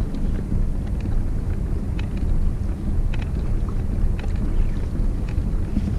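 Steady low rumble of wind buffeting the microphone on open water, with a few faint ticks.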